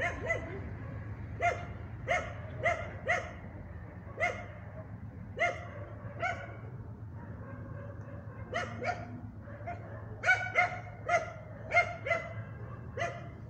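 A dog barking off-picture: about twenty short, high barks, some in quick pairs or threes, the loudest about ten to twelve seconds in, over a steady low hum.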